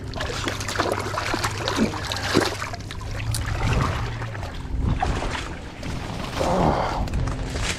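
A chain stringer full of fish pulled up out of the water, splashing and dripping, then rustling against brush and dry leaves as it is brought up onto the bank.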